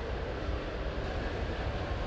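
Steady low rumble and hum of factory-floor machinery and ventilation, with no distinct strokes or changes.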